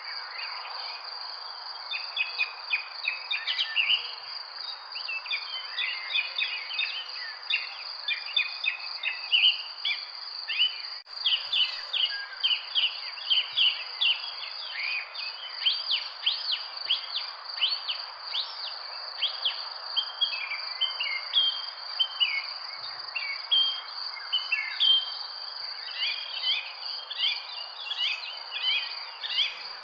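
Many small birds chirping and calling in quick, overlapping bursts, over a steady high-pitched drone and a soft background hiss.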